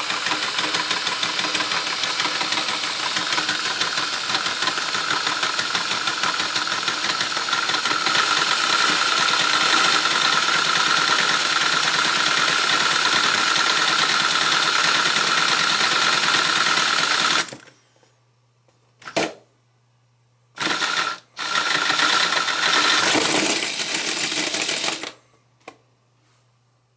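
LEGO heart-shaped V-twin model engine driven by an electric motor: plastic pistons, gears and bricks clattering fast over a steady motor whine. It stops about two-thirds of the way in, then runs again in a few short bursts, the last a few seconds long.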